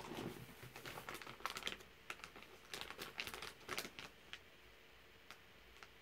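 Quiet keyboard typing: quick clusters of clicking keystrokes for about four seconds, then only a couple of single clicks.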